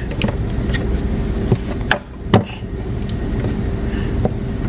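A few light knocks of toys against a wooden dollhouse, the loudest about two and a half seconds in, over a steady low rumble with a faint hum.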